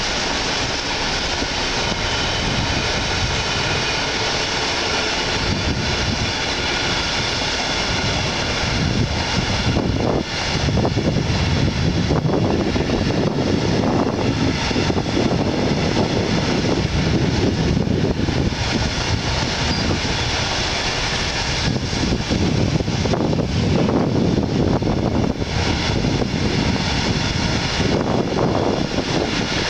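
Container flat wagons of a long freight train rolling past: a steady rumble and hiss of steel wheels on rail, a little louder from about ten seconds in.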